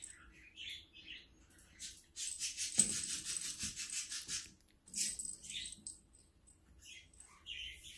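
Small bell inside a cat toy ball jingling: a rapid, rhythmic run of jingles lasting about two seconds, then a shorter burst about five seconds in.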